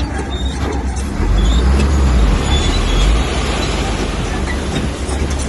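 Komatsu bulldozer's diesel engine running under load, getting louder about a second in.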